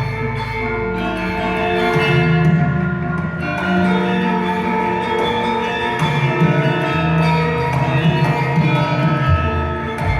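Javanese gamelan music: ringing, mallet-struck metal percussion playing sustained tones over a low drone.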